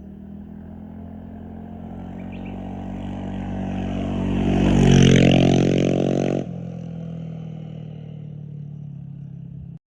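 Motorcycle engine drawing closer and passing by, growing louder to a peak about five seconds in, its pitch dropping as it goes past. The sound cuts off abruptly about six and a half seconds in, leaving a steadier, quieter engine hum that stops just before the end.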